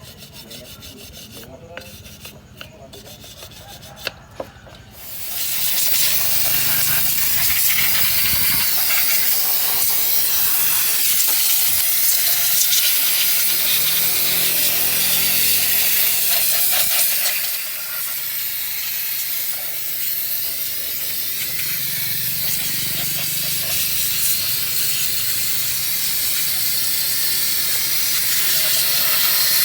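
Loud, steady hiss of a pressurized jet, starting about five seconds in and running on, with a slight drop in level about two-thirds of the way through. A few faint clicks come before it starts.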